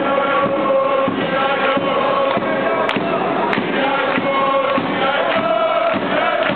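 Crowd of supporters singing a chant together, with hand-clapping mixed in.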